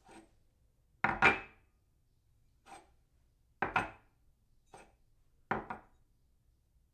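A ceramic cup is set down on its saucer again and again, clinking. Three louder double clinks come about two seconds apart, with a fainter single clink between each.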